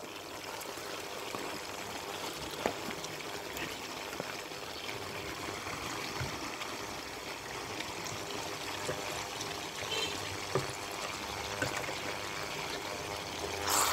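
Boiled boroi (jujube 'plums') sizzling steadily in hot mustard oil in a frying pan, with a few sharp pops.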